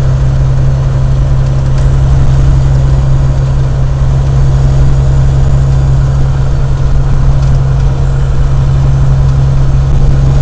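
Truck engine running at a steady speed with a loud, constant low drone and road noise, heard from inside the cab.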